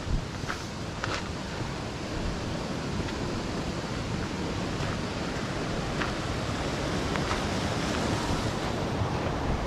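Steady rush of a mountain stream's flowing water, growing a little louder, with a few footsteps on the trail in the first second or so.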